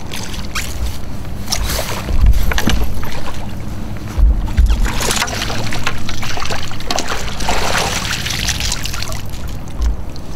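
Water splashing and sloshing beside a kayak as a hooked smallmouth bass is played alongside and scooped into a landing net, with a few low thumps from gear handling.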